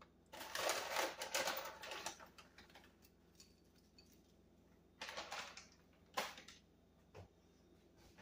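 Plastic snack bag of tortilla strips crinkling while crisp strips rustle as they are pulled out and dropped onto a bowl of soup. A long burst of crackling comes near the start, a shorter one about five seconds in, then a few light clicks.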